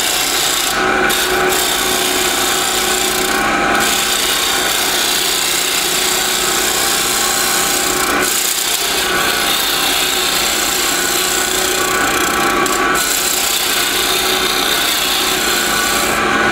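Wood lathe running while a gouge takes heavy roughing cuts on a small spinning wooden blank: a steady, loud scraping cut over the motor's hum, easing off briefly about eight seconds in.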